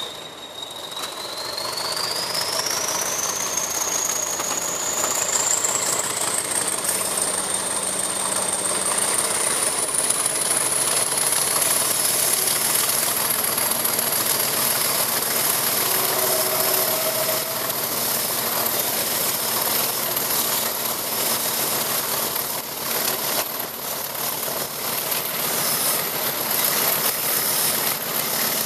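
English Electric Class 40 diesel locomotive pulling away under power: its turbocharger whistle rises steadily in pitch over about the first ten seconds, then holds as a high steady whistle over the engine's deep running note.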